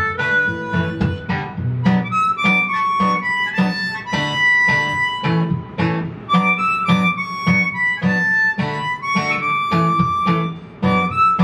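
Harmonica playing a wandering melody of held and bending notes over a strummed acoustic guitar, in a free improvised harmonica and guitar jam.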